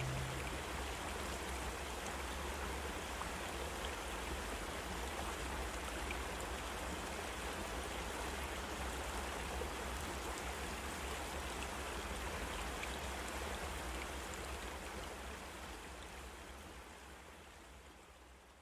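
Steady background hiss with a low hum beneath it, fading out over the last few seconds.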